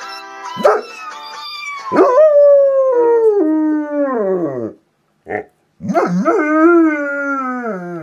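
German Shepherd howling along to a phone ringtone: two long howls that each slide down in pitch, with a short yelp between them. The ringtone's melody plays under the first couple of seconds.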